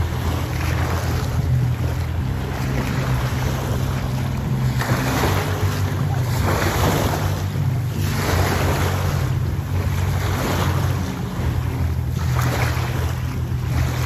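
Small waves washing up on a sand beach in surges every couple of seconds, over the steady low drone of a boat engine running offshore.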